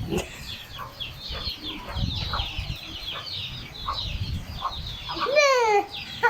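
Birds chirping in quick succession, with one louder call falling in pitch near the end.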